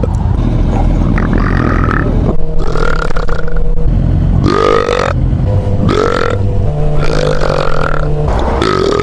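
A man belching loudly several times in a row, each burp a separate pitched, bending sound, over a steady low rumble.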